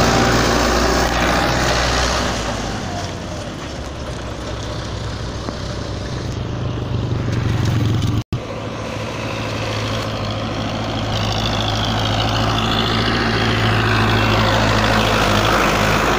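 Diesel engines of sugar-beet-laden trucks running as they pass close by, a steady low engine drone. The sound cuts off abruptly about eight seconds in, and a second truck's engine drone takes over.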